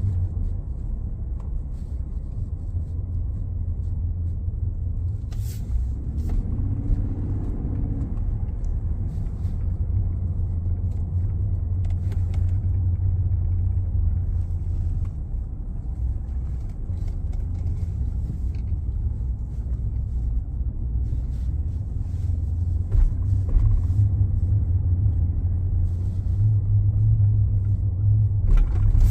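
Steady low humming drone from a 2019 Ford F-150 Lariat 3.5 while it is running, strongest in the low bass. The owner suspects it comes from the integrated wheel ends (IWE), the 4x4 actuators or the front differential.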